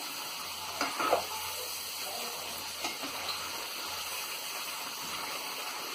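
Moong dal pakodas deep-frying in hot oil in a kadhai: a steady sizzle of oil bubbling around the batter on high flame. A few faint clicks come from the slotted spoon turning them, about a second in and again near three seconds.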